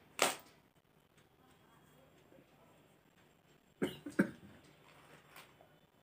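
A woman's short, sharp breathy sounds from the nose and throat while she tickles the inside of her nostril with a cotton-tipped toothpick to bring on a sneeze. One loud burst comes just after the start, then two or three shorter ones about four seconds in.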